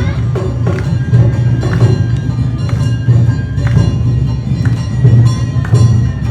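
Awa Odori festival band playing: a steady beat of drums with sharp struck metal hits and a held high flute line.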